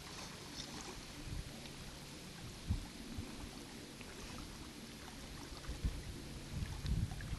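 Wind buffeting the microphone in a few low rumbling gusts over a faint steady hiss.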